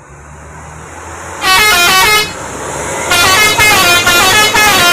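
Telolet musical horn on a passing heavy vehicle, sounding two bursts of its stepping multi-note tune, the second longer and broken into short notes. Underneath, the vehicle's engine grows louder as it draws near.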